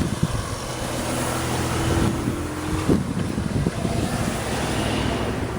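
Engine running with a steady low drone, with wind on the microphone.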